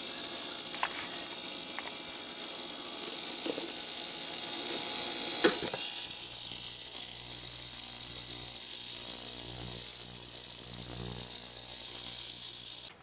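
Ultrasonic cleaner running: a steady hiss with a faint buzz from its tank of hot water and Dawn dish soap as it works rust off a hydraulic valve spool and spring. A few light knocks come through, the loudest about five and a half seconds in, and a low hum joins from about six seconds in.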